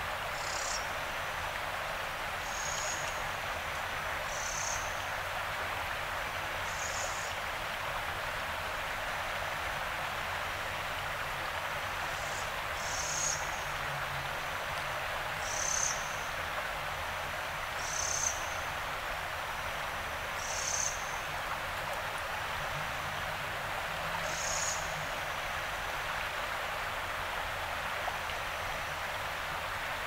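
Steady rush of flowing river water, with a short high-pitched chirp repeating every two to three seconds.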